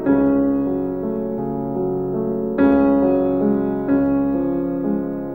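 Background music: a piano-like keyboard playing slow, sustained chords, with fresh chords struck at the start, about two and a half seconds in, and again about a second later.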